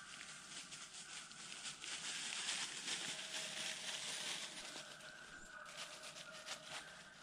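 Crackling, rustling noise with many small clicks, loudest a couple of seconds in and fading toward the end.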